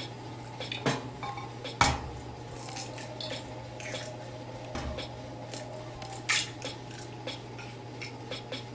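Kitchen handling sounds: scattered clinks and knocks of a bowl, utensils and ingredient packets being handled while mixing up a batter of eggs and flour, the sharpest knock about two seconds in, over a steady low hum.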